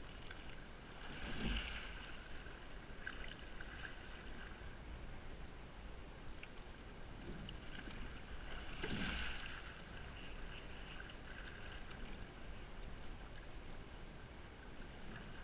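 Sculling boat being rowed at slow, relaxed pressure: water rushing along the hull, with louder swells of splash and rush as strokes go through, about a second and a half in and again about nine seconds in. The sliding seats roll on their tracks in between.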